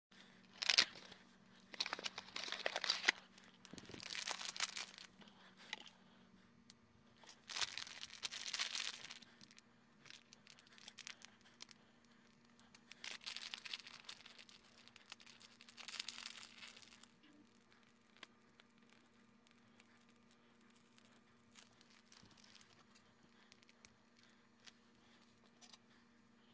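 Wrapping being rustled and torn in several bursts over the first two-thirds, then only a few light clicks of handling. A faint steady hum runs underneath.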